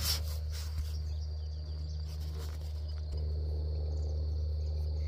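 Insects chirring in a steady high-pitched drone over a steady low hum, with brief rustling from handling near the start.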